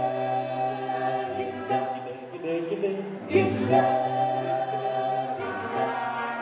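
A cappella vocal group singing held, harmonised chords over a low bass voice, with a fresh chord struck a little past three seconds.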